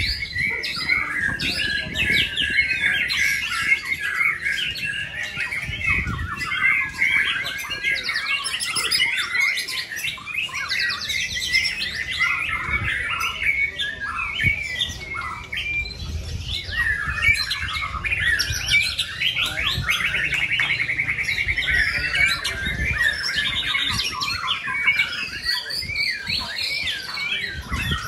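White-rumped shamas singing: a dense, unbroken stream of varied, fast-changing whistled phrases and chatter, several caged birds singing over one another.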